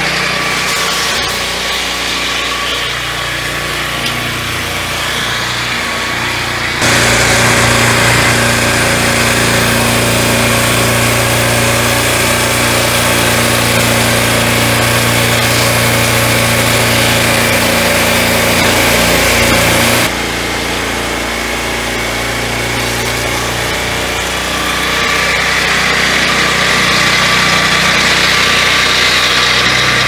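Turbosawmill M12 Warrior swingblade sawmill running, its engine driving the circular blade as it saws through a log. The steady drone changes abruptly about seven seconds in and again around twenty seconds in, and it is louder between those two points.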